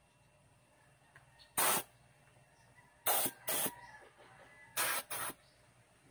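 Short blasts of compressed air hissing from an air duster gun fed by a homemade silent compressor: one blast, then two quick pairs of blasts.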